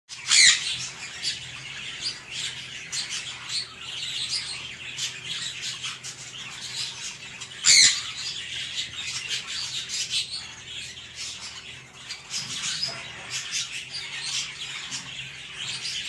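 African grey parrots calling in an aviary: two loud, short shrieks, one about half a second in and one near the middle, over continual high chirping and whistling chatter.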